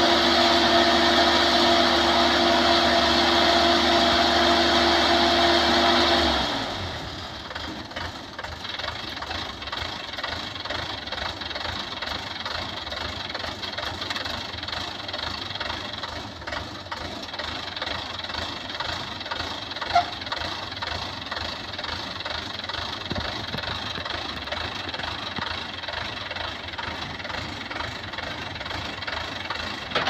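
Combine harvester engine running steadily at speed, then dropping abruptly about six seconds in to a rougher, lower engine idle that carries on with a knocking rhythm. A single sharp knock sounds about two-thirds of the way through.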